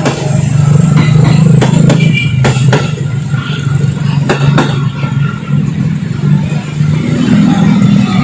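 Electric commuter train passing close by, with a steady low hum from its running gear. Over the hum come sharp clacks, several in pairs about a third of a second apart, as the wheels of each bogie cross rail joints.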